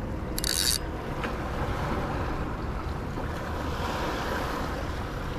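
Wind buffeting the microphone over a steady wash of water, with a brief hiss about half a second in.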